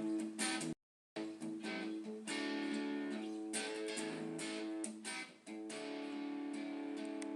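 Background guitar music, strummed, with a brief gap to silence about a second in.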